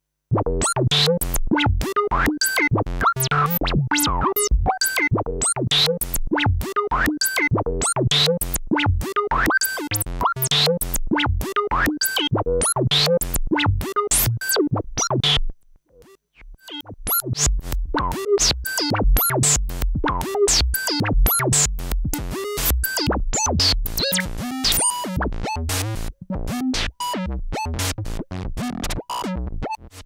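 Korg Monologue monophonic analog synthesizer playing a fast, rhythmic sequenced line over steady percussive hits, its tone changing as its knobs are turned. The music stops for about a second around the middle, then starts again.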